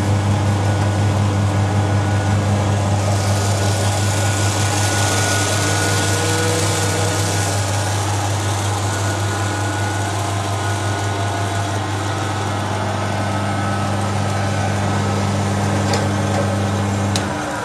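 Electric rice polishing machine running with a steady, loud motor hum, with a hiss of rice pouring from its outlet chute for a few seconds early on. Near the end there are two clicks and the motor is switched off, its hum dropping away and winding down.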